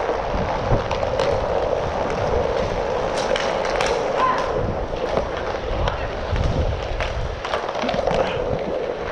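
Inline hockey skates rolling and striding on a plastic sport-court floor, picked up by a helmet-mounted camera, with a steady rolling noise and low rumble. Sharp clacks of sticks and puck come a few times around the middle and again near the end.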